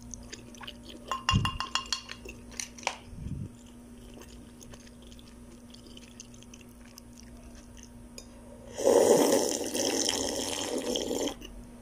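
A few knocks of a spoon against a glass soup bowl in the first few seconds, then, near the end, about two seconds of loud slurping as the spiced tomato broth is drunk straight from the bowl.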